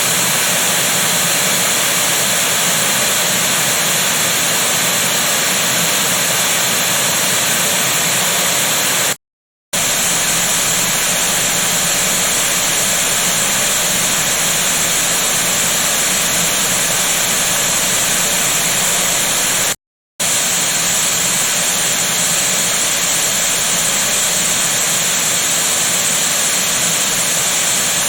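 White noise played through homemade two-way speakers, each channel four Daiso 100-yen woofers with a Can Do tweeter behind a film-capacitor and air-core-coil crossover, picked up by a microphone in the room. It is a steady hiss, strongest in the treble with little deep bass, in three stretches of about ten seconds each, cut by brief silences about nine and twenty seconds in. Each stretch uses a different crossover setting: the tweeter capacitor goes up from 1.5 to 2.2 to 3.3 µF with a 0.22 mH coil.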